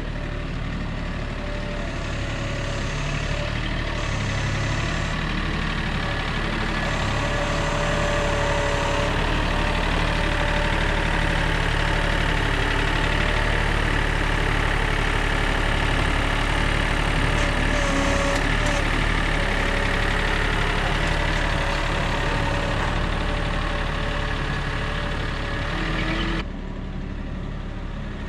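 A vehicle engine running steadily. Near the end it drops suddenly to a quieter, duller sound.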